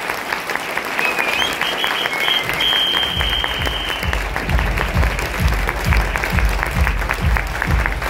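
Audience applauding throughout. A high held whistle sounds over it for a couple of seconds. About three seconds in, music with a steady bass beat of about two a second starts under the applause.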